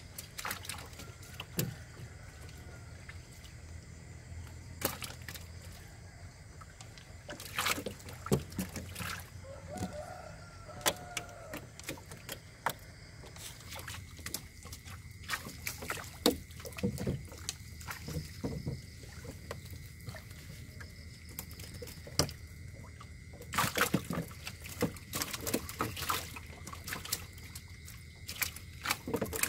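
Water splashing and sloshing as a hand net is worked through shallow water. Many short knocks and clicks are scattered through it, thickest about a third of the way in and again near the end.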